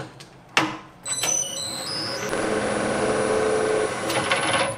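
Metal lathe running with a knurling wheel pressed into a spinning aluminium workpiece, rolling a knurl. After a short near-quiet moment the steady running noise starts sharply about half a second in and holds until just before the end.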